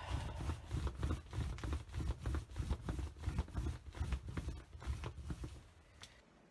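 A brayer rolling blue paint onto a gel printing plate: a fast, tacky crackle of many small clicks as it goes back and forth, stopping about five and a half seconds in.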